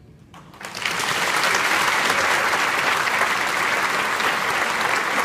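Congregation applauding at the end of a song: clapping begins under a second in, swells quickly and holds steady.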